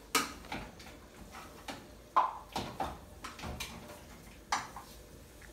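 Metal spoons clinking and knocking against a saucepan and a bowl: a handful of sharp clinks, the loudest, with a short ring, about two seconds in.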